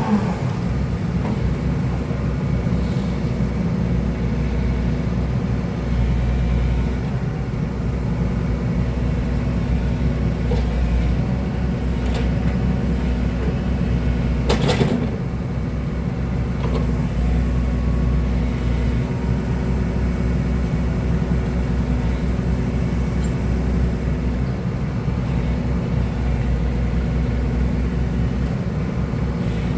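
Hydraulic excavator's diesel engine running steadily under work, with one sharp knock about halfway through.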